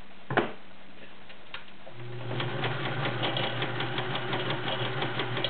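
Vintage Kenmore model 1430 sewing machine running steadily, stitching through five layers of denim with a rapid, even ticking, starting about two seconds in. A single sharp knock comes shortly before it starts.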